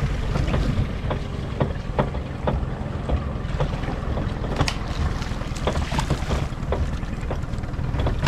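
Wind buffeting the microphone over the low rumble of a small boat at sea, with frequent short splashes and knocks of water against the hull.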